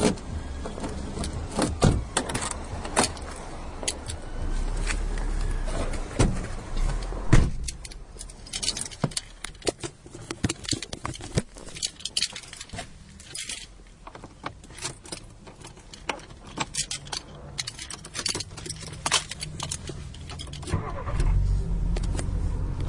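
Car keys jangling amid a run of sharp clicks and knocks as a car is unlocked and opened. A low steady rumble sets in near the end.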